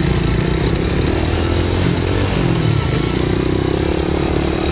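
Small ATV engine running as the quad is ridden, its pitch rising and falling with the throttle.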